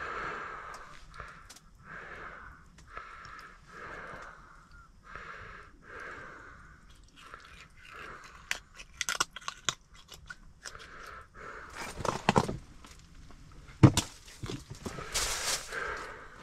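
Cleaning a freshly caught catfish by hand: heavy breathing at about one breath a second, then a run of sharp crunchy clicks as its gills are cut to bleed it. A hard knock comes about two-thirds of the way in, followed by a loud burst of rustling.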